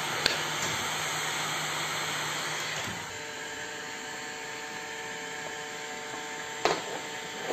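Electric heat gun blowing steadily. About three seconds in its noise drops to a quieter, steady hum. Two light knocks, one just after the start and one near the end.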